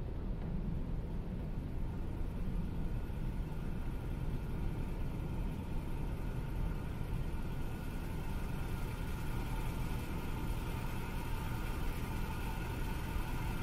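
A steady low rumbling drone, with faint high steady tones slowly building in over its second half.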